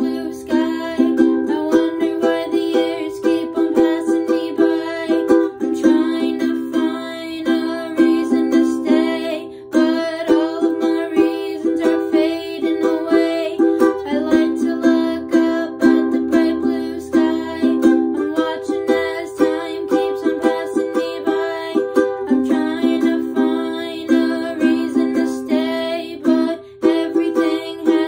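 A ukulele strummed in steady chords, with a voice singing a melody over it.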